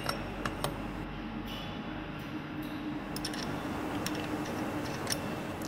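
A few faint, scattered clicks and light taps as a scooter's CNC clutch bell is handled and fitted over the clutch, over a steady low hum.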